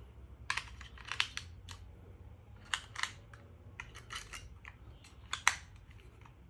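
Irregular sharp plastic clicks and taps from a digital thermometer being handled, its battery compartment and buttons worked, with the loudest click about five and a half seconds in.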